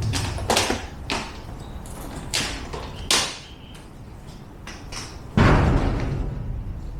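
Knocks and clatter from interlocking floor tiles being handled and set down. About five seconds in there is a heavier thud followed by a low scraping rumble.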